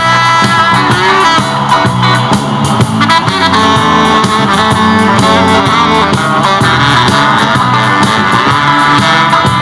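Blues-rock music playing loud over a DJ's speaker system, with saxophone and guitar.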